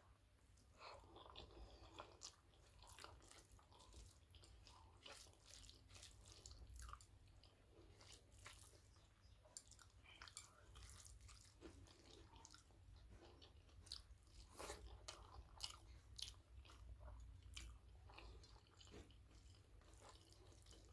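Faint close-miked chewing of a rice-and-curry meal, with frequent small crunches and mouth clicks throughout.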